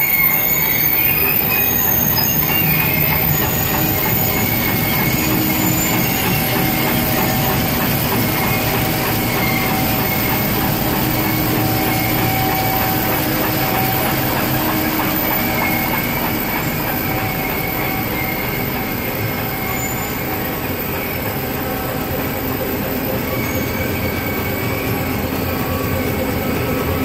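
A sorting machine's conveyors and roller screen running: a steady, loud mechanical din with high metallic squeals that come and go.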